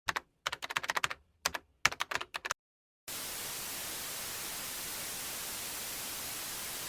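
Computer keyboard typing: irregular runs of sharp key clicks for about two and a half seconds. After a short gap, a steady, even hiss of static noise starts about three seconds in.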